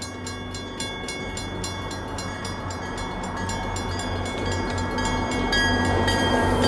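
Grade crossing warning bell ringing in rapid, steady strokes while an MBTA GP40MC diesel locomotive approaches, its engine growing louder toward the end.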